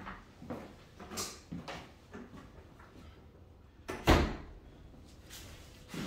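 A door being handled: a few soft knocks and clunks, then one loud thump about four seconds in.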